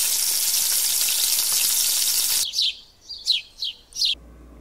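A loud, even sizzle like food deep-frying for about two and a half seconds, cut off abruptly, then four quick bird chirps that each fall in pitch.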